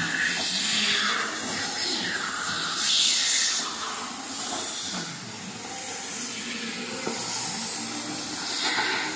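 Oxy-fuel gas cutting torch hissing as it cuts through a thick metal drum. The hiss swells harsher several times in the first few seconds and again near the end.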